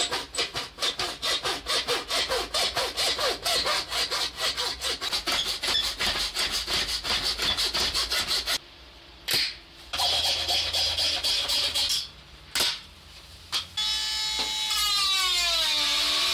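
Hacksaw cutting through an Epson S21 inkjet printer's chassis in quick, steady back-and-forth strokes. The sawing pauses about eight seconds in, resumes briefly, then stops, followed by a couple of knocks. Near the end comes a steady noise with sliding, falling squeaky tones.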